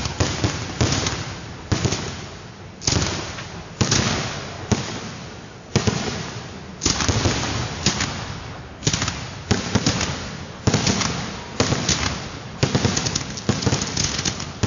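Aerial fireworks shells bursting in steady succession, a sharp bang about once a second, each fading out before the next. Near the end the bangs come thicker, with a flurry of smaller pops.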